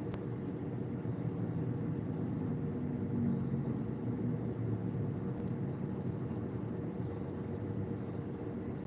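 Steady low rumble of a vehicle on the move, engine and road noise with no sudden events.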